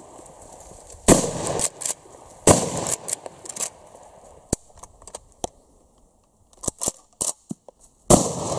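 Three shots from a Uzkon LA887 12-gauge lever-action shotgun, about a second in, about two and a half seconds in and near the end, with a few smaller sharp clicks and knocks between the second and third.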